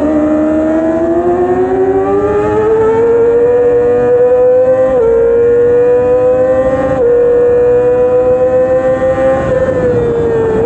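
Yamaha R6 600 cc inline-four racing engine under hard acceleration, revs climbing high, with two quick upshifts about halfway through and again later. Near the end the revs fall as the throttle comes off.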